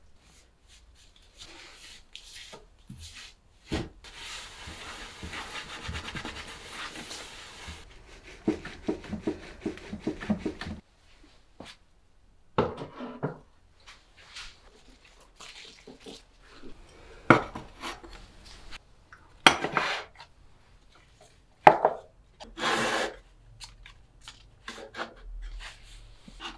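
Household tidying at a wooden plant shelf: a few seconds of brushing and rubbing as a duster is worked over the wood, then a quick rattle and a string of separate clinks and knocks as terracotta plant pots are lifted and set down on the wooden shelves.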